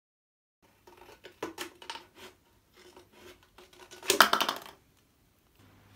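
Scissors cutting into a clear plastic drink bottle, the thin plastic crackling and snipping in irregular clicks, with the loudest quick run of crackles about four seconds in.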